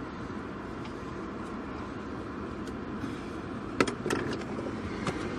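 Steady background noise, with a short cluster of sharp clicks and knocks about two-thirds of the way in and one more near the end: hands and tools working at the horn wire connectors under a car's steering wheel.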